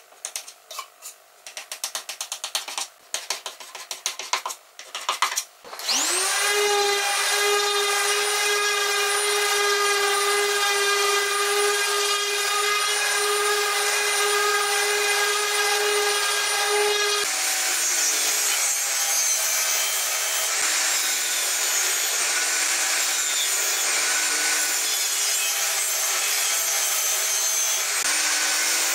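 Scraping strokes of a putty knife spreading wood filler over a pine board. About six seconds in, a random orbital sander spins up with a rising whine and runs at a steady pitch on the wood. Around the middle, the sound changes to a table saw running and cutting the pine panel.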